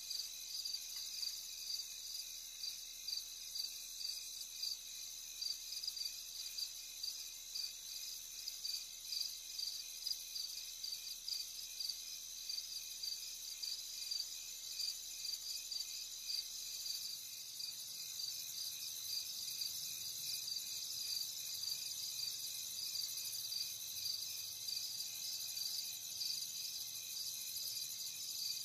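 Insects chirping steadily in a high, evenly pulsing chorus.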